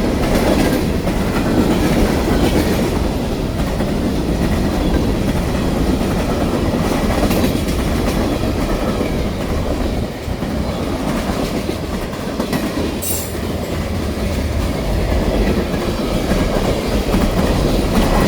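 Freight train cars rolling past, a steady loud rumble with the clickety-clack of wheels over the rail joints.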